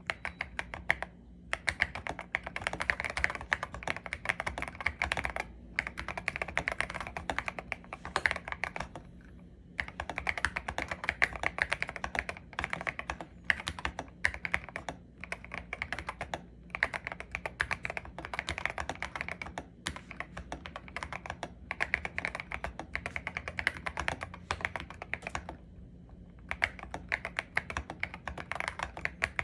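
Typing on a Next Time 75 mechanical keyboard with Akko Radiant Red linear switches, with a thocky sound: fast runs of keystrokes broken by short pauses every few seconds.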